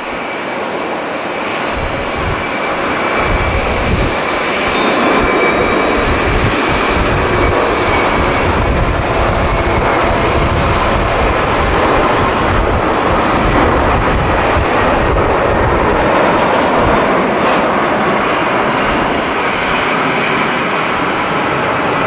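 Boeing 767's twin jet engines at takeoff power as the airliner rolls, lifts off and climbs out: a loud, steady jet noise that swells over the first few seconds, with a thin high fan whine in the first half and an uneven low rumble underneath.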